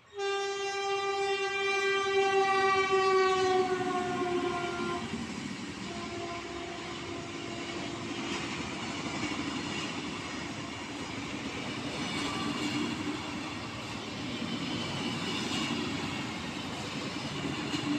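Electric locomotive's horn blaring as an express train passes, a single note held for about five seconds that sags slightly in pitch before cutting off. Then the steady rumble and clickety-clack of the coaches' wheels running past.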